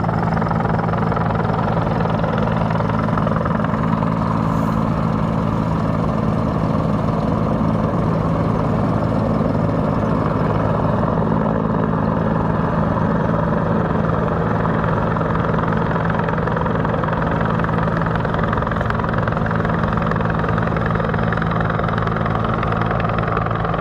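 Steady, loud drone of a firefighting helicopter hovering low over the river while it fills its Bambi bucket, blended with the steady hum of an idling engine.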